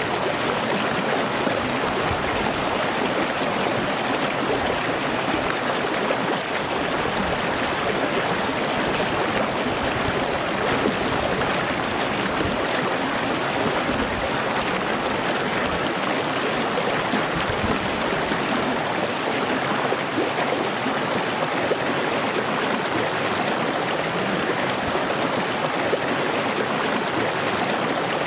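A small, clear, rocky stream at low flow, running over stones with a steady babble of water.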